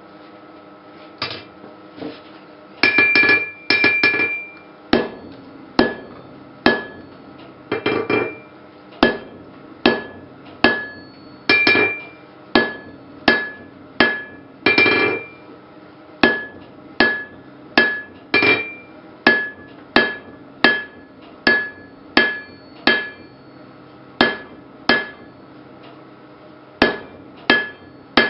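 Blacksmith's hammer forging iron on an anvil: a steady run of sharp blows, about one a second, each with a short clear ring from the anvil, with a few quick double strikes among them.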